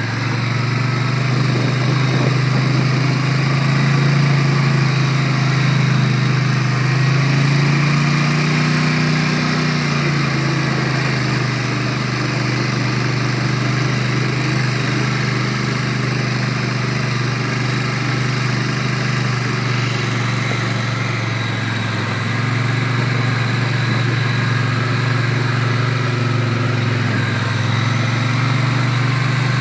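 ATV engine running steadily on a trail ride, its pitch rising and falling a little with the throttle.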